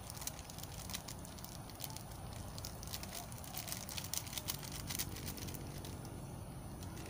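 Irregular light clicks and taps from hands handling food and utensils at a camp cooking table, over low outdoor background noise. A faint steady low hum, like a distant engine, comes in about five seconds in.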